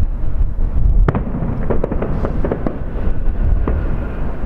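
Fireworks shells bursting over the water: a quick run of sharp pops and crackles, the loudest bang about a second in, over a steady low rumble.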